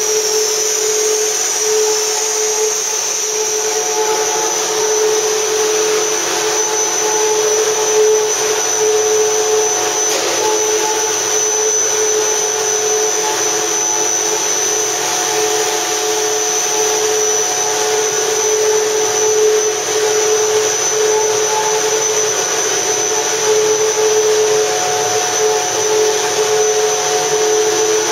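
Plastic cable-duct extrusion downstream line running: a steady machine hum and hiss with a constant high-pitched whine.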